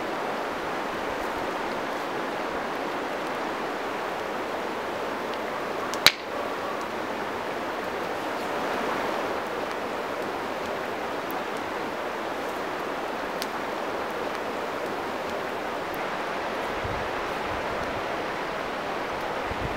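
Steady rush of flowing river water. One sharp click comes about six seconds in, and a few faint ticks follow later.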